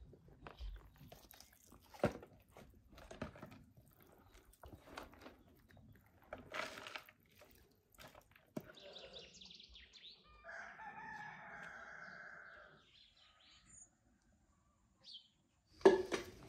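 A rooster crowing once, a single long call of about two seconds past the middle. Before it, light knocks and clatter of flowerpots being handled; near the end, a louder sharp knock.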